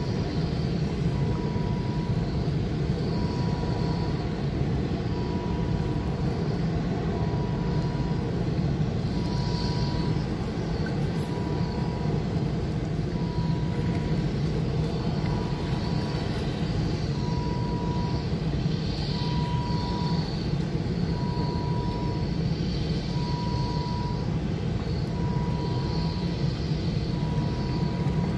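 Steady low outdoor rumble, with a faint high beep repeating about once every second and a quarter.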